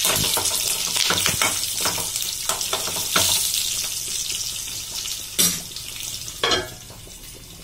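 Tempering of mustard seeds, cumin, peppercorns, urad dal, dried red chillies and curry leaves sizzling and crackling in hot oil in a kadai, a spatula stirring it, the sizzle slowly dying down. A couple of sharper knocks come past the middle.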